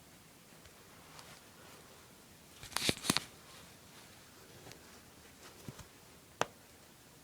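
Wire coat hanger being untwisted and bent open by hand: a quick cluster of sharp metal clicks about three seconds in, a few faint ticks, then one more sharp click near the end.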